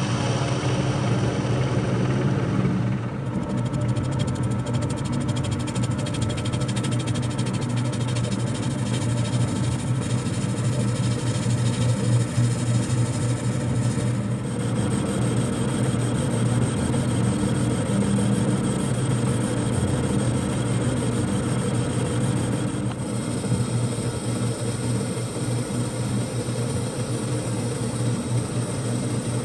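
Metal lathe running steadily while a carbide insert tool takes facing and turning cuts on a rough Zamak (ZA-12) zinc-alloy casting: a constant motor and spindle hum under the hiss and scrape of the cut. The cutting noise shifts about three seconds in and again about halfway through.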